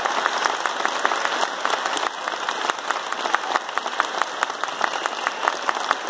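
Audience applauding: many hands clapping in a steady, dense patter, with single claps close by standing out.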